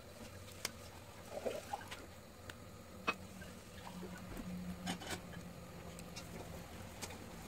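Wood fire crackling in a fireplace, with scattered sharp pops and snaps from the burning logs, the loudest about three seconds in, over a faint low hum.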